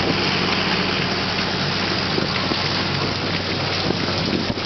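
Steady drone of a shrimp trawler's engine, with a continuous even noise of shrimp pouring from the hopper onto the sorting conveyor.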